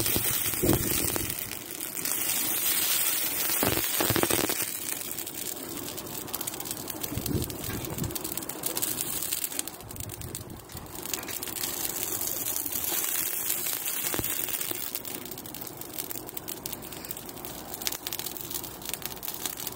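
Dry Christmas tree burning in a metal garden incinerator, its needles and twigs crackling and popping densely, busiest in the first few seconds.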